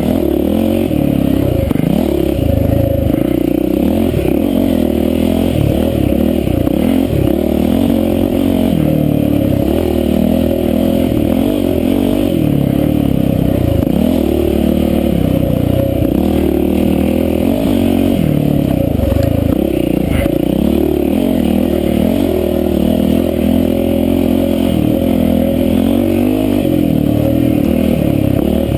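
Yamaha WR450F dirt bike's single-cylinder four-stroke engine running hard on a wooded singletrack, heard up close from on the bike. The revs keep rising and falling as the rider works the throttle through the trail.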